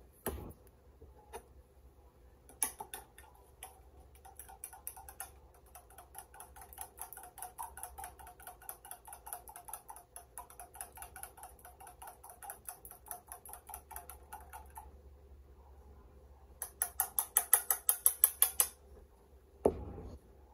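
Eggs being beaten with a fork in a clear measuring cup: the fork clicks against the side in a steady rhythm, about five times a second. Near the end comes a short burst of louder, faster beating, then a single knock.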